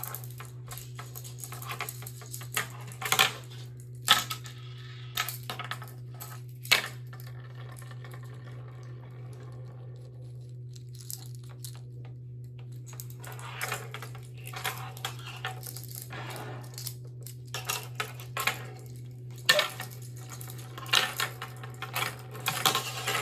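Small plastic fidget spinner toys with rolling beads being handled and spun: irregular sharp clicks and light clattering of hard plastic, over a steady low hum.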